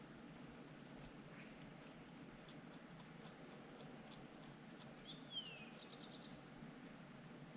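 Near silence with faint scattered ticks. About five seconds in, a small bird gives one short call: a brief whistle that drops in pitch, followed by a quick rattle.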